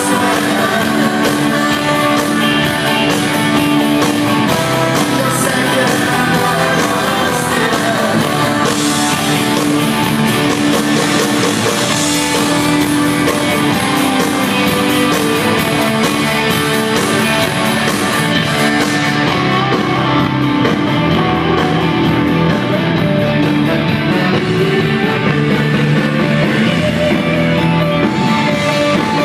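Rock band with horns playing live through stage speakers at a soundcheck: electric guitars, drums, saxophone and trombone, with singing.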